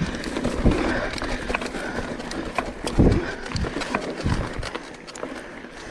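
Mountain bike ridden over a dry dirt trail strewn with leaves and stones: tyres crunching and the bike rattling, with several dull thumps over bumps, the biggest about three seconds in.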